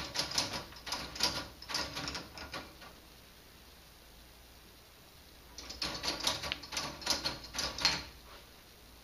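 Plastic K'nex domino-stairs ball machine clattering as a ball is tipped down from step to step: a run of quick plastic clicks and clacks about two and a half seconds long, then a second run a few seconds later as another ball goes down.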